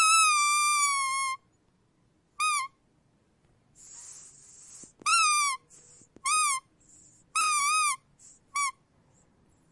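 Squeak toy squeezed over and over, giving a series of sad, falling squeaks: a long drawn-out one at the start, then about five shorter ones, one of them wavering up and down. A soft airy hiss comes between some of the squeezes.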